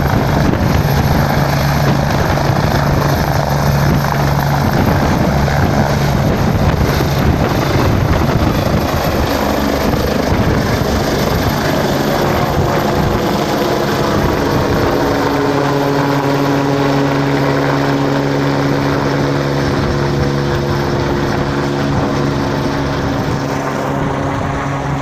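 INEM medical helicopter running loud and close, a dense rotor and engine noise with a steady low hum. From about halfway through, steady higher engine tones come up, and the whole sound slowly grows a little quieter towards the end.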